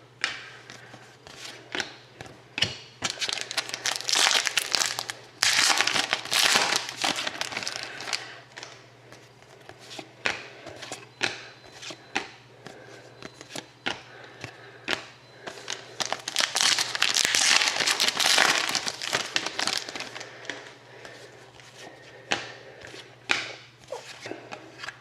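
Trading card packs and cards being handled: crinkling, rustling wrappers and cards in two longer bursts of several seconds, with scattered small clicks and taps between them.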